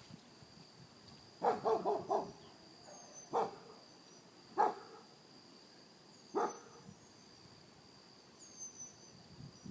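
A dog barking: a quick run of about four barks, then three single barks a second or two apart.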